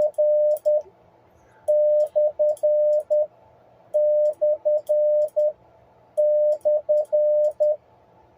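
Morse code sidetone beeping out the slash character, dah-dit-dit-dah-dit, over and over: the tail of one group at the start, then three full groups about two seconds apart.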